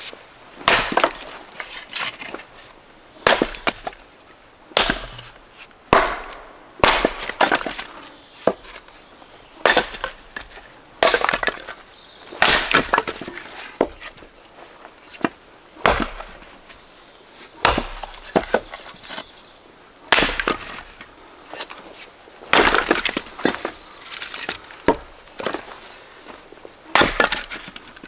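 Axe splitting firewood rounds on a chopping block: repeated sharp chops, roughly one a second, each with the crack of the wood splitting apart.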